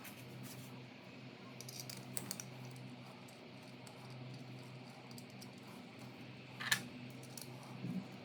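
Faint scattered clicks and taps, with one sharper click about two-thirds of the way through, over a low steady hum.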